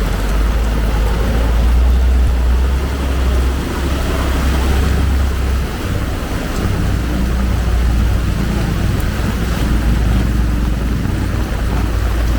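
Low rumble of a vehicle engine running in a flooded street, with a faint steady hum, over the steady hiss of heavy rain.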